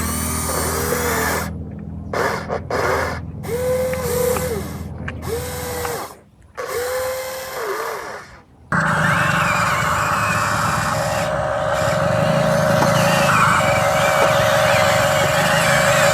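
Small electric motors of an RC excavator whining in short spurts, each ramping up in pitch, holding and dropping back as a control is worked, with abrupt gaps between them. About nine seconds in, the sound cuts suddenly to a steady, continuous motor whine.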